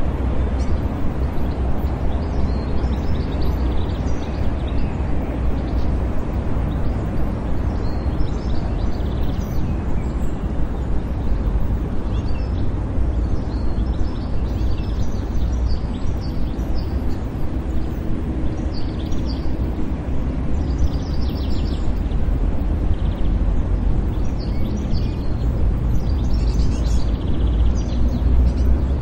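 City park ambience: a steady low rumble of distant traffic with birds chirping every few seconds.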